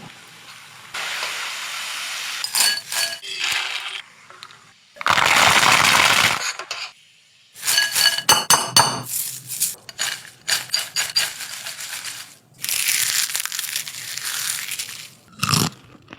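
Kitchen cooking sounds: a metal utensil clinking and knocking against metal cookware, with short ringing notes, between stretches of hiss lasting one to two seconds.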